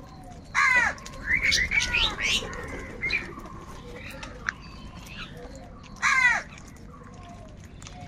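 House crows cawing as they squabble over food. A loud harsh caw comes about half a second in, then a burst of several overlapping caws around two seconds in, and another loud caw about six seconds in, with softer short calls between.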